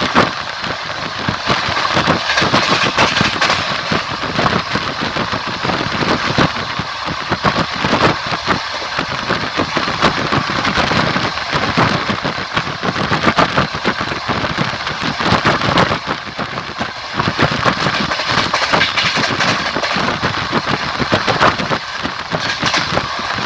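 Train running along the track: a steady rolling noise full of clatter and rattle from the wheels on the rails.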